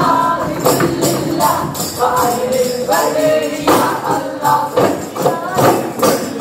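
Arabana muttu: a group of voices singing together in unison while beating arabana, hand-held frame drums, in sharp, uneven strokes.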